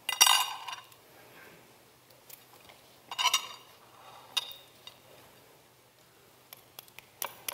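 Metal spoon clinking against the plate and dishware beside a crisp deep-fried crab omelet, the loudest a ringing clink at the very start and another about three seconds in, with paper napkins rustling. Near the end comes a run of small sharp crackles as the crisp crust of the omelet is cut.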